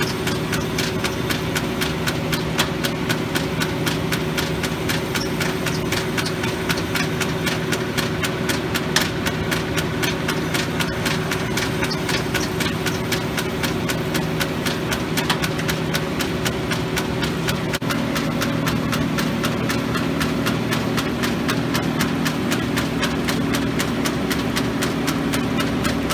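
Arter A3-16 rotary surface grinder running, its belt- and gear-driven wheel grinding parts on the turning magnetic chuck under coolant: a steady machine hum with a rapid stream of ticks. About two-thirds of the way in, the hum shifts to a different, lower pitch.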